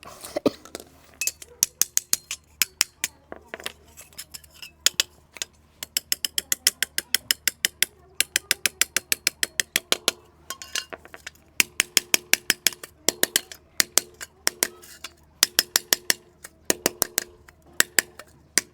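Hammer tapping on a bent metal satellite dish to straighten it: quick runs of sharp strikes, several a second, each with a short metallic ring, broken by brief pauses.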